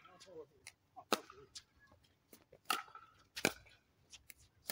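Doubles pickleball rally: paddles hitting the plastic ball in sharp pops roughly once a second, with fainter ticks in between.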